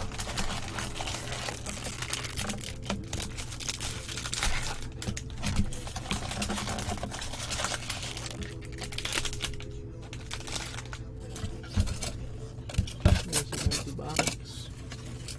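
Plastic shrink wrap crinkling and tearing as a sealed cardboard trading-card box is unwrapped and opened by hand. A few sharp knocks come near the end as the cardboard and its foam insert are handled.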